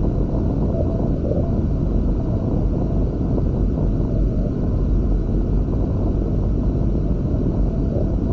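Wind buffeting the microphone of an Insta360 ONE X2 camera on a beach catamaran under sail: a steady, low rumbling rush with no breaks.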